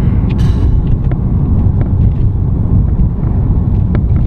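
Steady low rumble of a car driving, heard from inside the cabin, with road and wind noise on the microphone.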